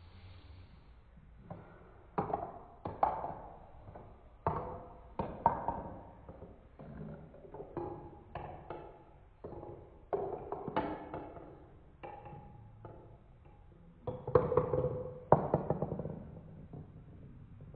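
Marbles running through a plastic Trix Tracks marble run, clacking and rattling against the track pieces in irregular clusters of knocks with short ringing tones.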